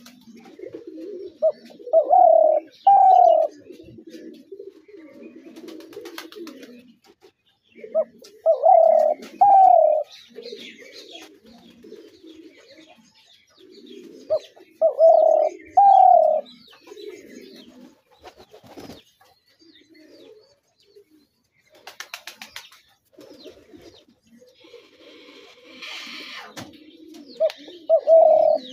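Spotted doves calling: a loud falling two-note coo phrase repeated about every six or seven seconds, with softer, lower cooing between the phrases.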